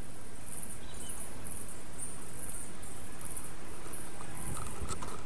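Squeaky high-pitched chirping, about two bursts a second, over a steady hiss: songbirds in the forest around the nest, sped up by the time-lapse. A few faint clicks near the end.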